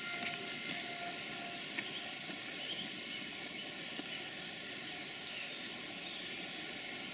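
A train running past on the railway line, a steady rolling noise.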